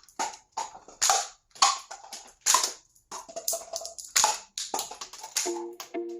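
Toy SIG Sauer P320 blowback pistol fired again and again, sharp snapping shots about twice a second as the slide cycles and ejects shells. Background music comes in near the end.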